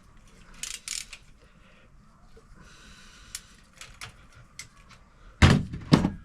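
Metal hand tools, a 19 mm socket and spanner, clicking and clinking on a KYB fork's top nut and cap as they are tightened. Near the end come two loud clunks about half a second apart.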